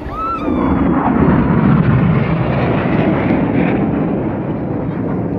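Jet engines of a low-flying aerobatic formation roaring as the jets pass overhead. The roar swells about half a second in, is loudest over the next two seconds, then slowly eases off.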